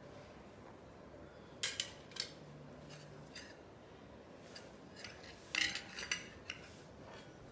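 Stainless-steel kitchenware clinking: a hand-held metal lemon squeezer and a spoon knocking against steel bowls and a plate. There are a few sharp clinks about two seconds in, and a quick cluster near six seconds as the spoon scoops in a steel bowl.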